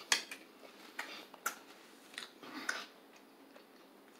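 A person chewing crunchy fried breading close to the microphone: quiet, crisp crunches and mouth clicks at irregular intervals, several times.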